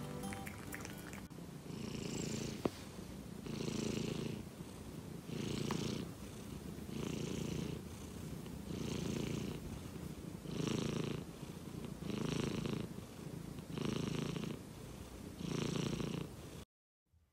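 Close-up purring of a Scottish Straight cat, a steady purr swelling and fading in a slow breathing rhythm, one swell about every second and a half to two seconds, while being stroked on the head.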